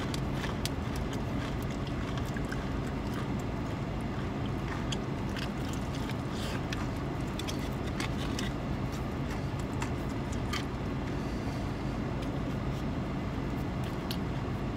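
Steady low hum of a car running, heard inside the cabin, with scattered soft crunchy clicks of a person chewing a piece of fried chicken.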